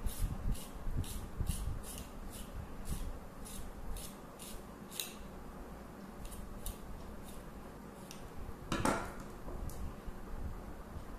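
A radish being peeled: a blade scrapes its skin in short, sharp strokes, roughly two a second, with one louder, longer scrape about nine seconds in.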